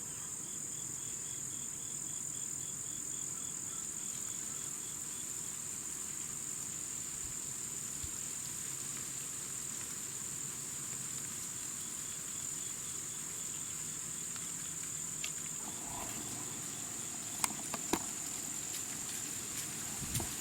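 Crickets trilling steadily in a high, even drone, with a couple of faint sharp clicks near the end.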